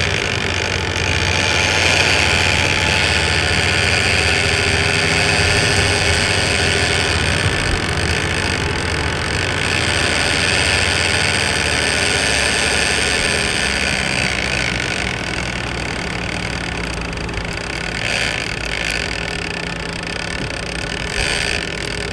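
Boat engine running steadily while trolling, with the rush of water from the wake.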